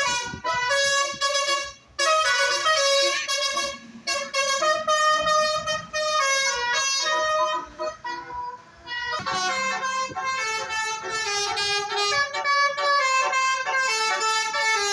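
Tourist bus's telolet musical horn playing a tune: a run of loud horn notes stepping from pitch to pitch, with short breaks and a longer lull about eight seconds in.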